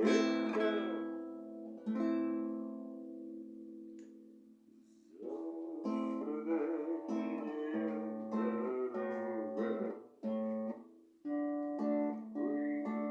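Acoustic guitar being strummed: a chord rings out and fades away, then the chord playing picks up again about five seconds in and goes on, with a short break near the end.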